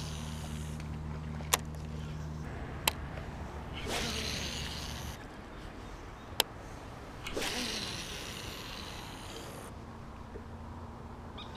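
A boat's motor humming steadily at a low pitch. It fades out a few seconds in and comes back near the end. Three sharp clicks and a couple of longer rushes of hiss lie over it.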